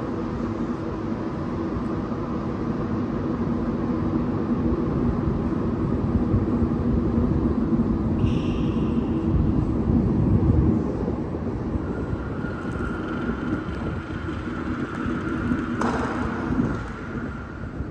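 Montreal Metro rubber-tyred train rumbling in the tunnel, with a steady mechanical hum. It grows louder to a peak around ten seconds in and then drops away sharply, and a thin high whine comes in later.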